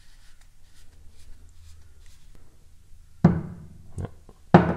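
A steel drill chuck and its tooling being handled on a wooden workbench: faint rubbing and small clicks, then about three sharp knocks in the last second and a half as the metal parts are knocked and set down.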